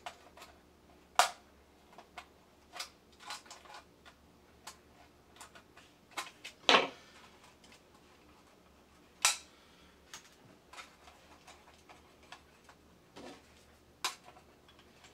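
Scattered clicks, taps and clacks from a tin toy robot's metal body and hard plastic arm bellows being handled and turned over in the hands. A few sharper clacks stand out, the loudest about halfway through with a short ring after it.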